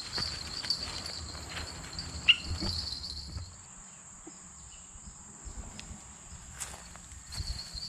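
Insects trilling steadily outdoors, one high trill stopping a few seconds in and starting again near the end, with scattered knocks and rustles of handling and one sharp click a little over two seconds in.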